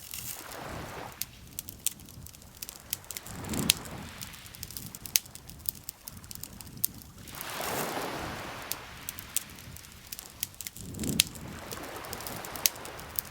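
Campfire crackling with frequent sharp pops, over lake water lapping in slow swells about every three to four seconds.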